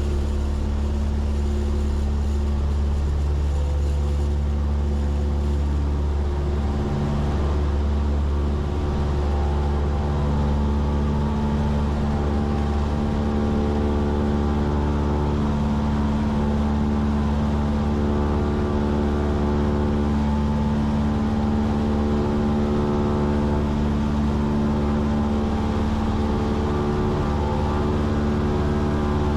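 Cessna 172's piston engine and propeller droning steadily in flight, an even hum that holds one pitch throughout.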